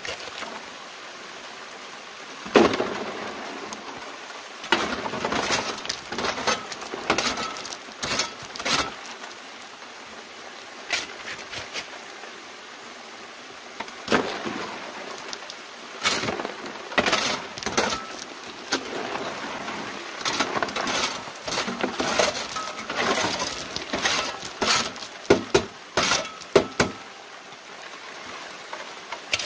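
Shovelfuls of stream gravel tipped onto a steel classifier screen atop a sluice box, stones clattering on the metal again and again, over a steady rush of water from the hose.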